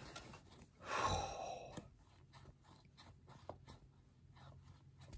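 A person's long, breathy exhale about a second in, after which come faint, scattered small clicks and taps.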